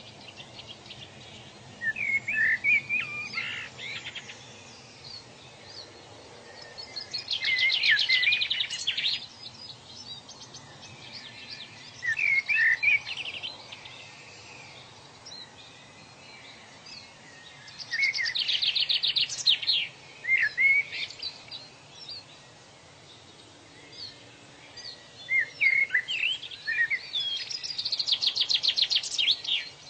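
Birds singing in repeated bursts several seconds apart, each a fast high trill mixed with chirps, over a steady low background hiss.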